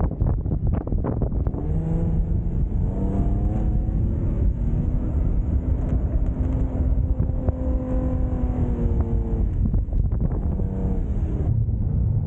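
Nissan Pathfinder R50's engine pulling hard off-road, its revs rising in steps and held high for several seconds before falling away near the end, over a constant low rumble.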